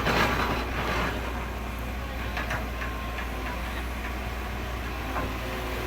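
Steady low mechanical hum with clicks and clatter, densest in the first second, then scattered clicks.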